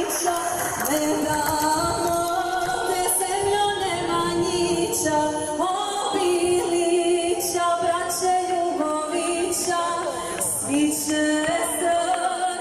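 Voices singing, several parts holding long notes with a slight waver and moving to new notes every second or two.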